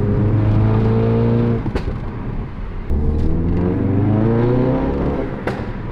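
Mountune-tuned Ford Focus RS MK3's turbocharged 2.3-litre four-cylinder engine pulling under acceleration, its pitch slowly rising, then dropping at a gear change with a short crack. It pulls and rises again and drops at a second shift near the end.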